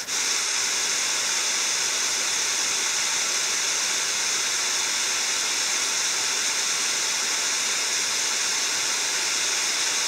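Small mountain creek running, a steady rushing hiss of flowing water.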